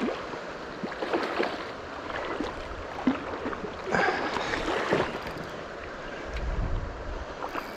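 Water splashing in several short bursts as a small hooked rainbow trout is brought in at the river's edge, over the steady wash of the river. A gust of wind rumbles on the microphone near the end.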